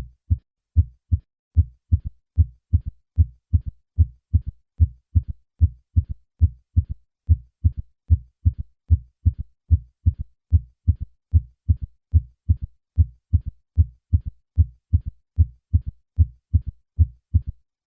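Heart sounds heard through a stethoscope: a steady run of short, low-pitched thuds in which each first and second heart sound is followed closely by a third heart sound in early diastole, a three-beat 'Ken-tuc-ky' ventricular gallop. In an adult over 40 this extra sound is a sign that left ventricular failure should be suspected.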